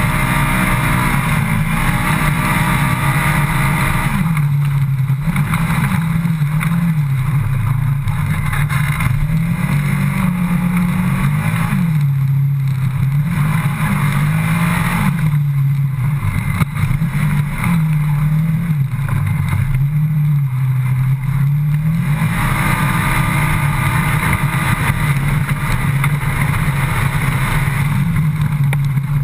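Polaris RZR XP 900 side-by-side's parallel-twin engine running hard, heard from inside the open cab. The engine note is steadier at the start and end, and through the middle its pitch swings up and down again and again as the throttle is worked on and off.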